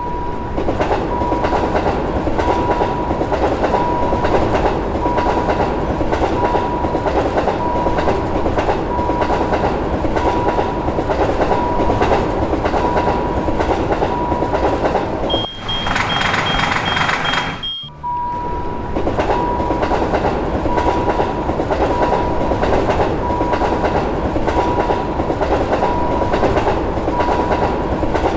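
Railroad crossing warning signal sounding a ding about once a second over the continuous rumble and clatter of a passing train. About fifteen seconds in the rumble gives way for two seconds to a higher hiss with a steady high tone, then the train noise and the crossing signal return.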